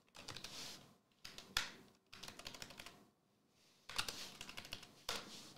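Typing on a computer keyboard: several quick runs of rapid key clicks, separated by short pauses.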